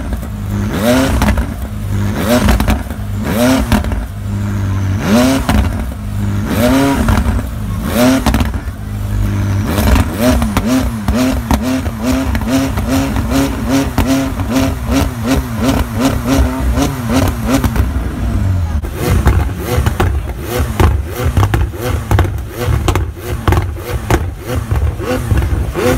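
McLaren 600LT's twin-turbo V8 revved again and again, its pitch rising and falling with each blip and quickening to about two blips a second midway, with sharp exhaust pops and crackles throughout. About two-thirds of the way in the sound turns rougher and noisier.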